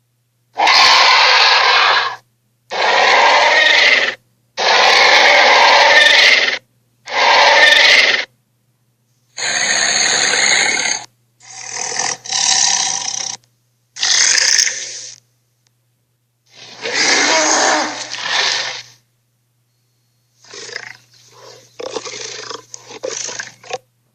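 A series of about nine roaring creature sound effects, each one to two seconds long and cut off to silence between them. The first four are the loudest, and the last ones near the end break up into short, choppy growls.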